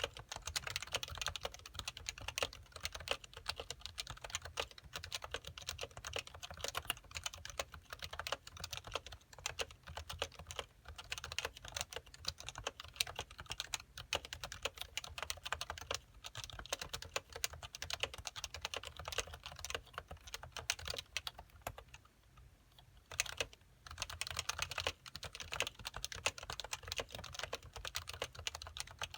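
Steady, fast typing on a Happy Hacking Keyboard Professional (first generation) with uniform 45 g Topre switches, in stock form without any silencing mod. There is a brief pause in the keystrokes about three quarters of the way through.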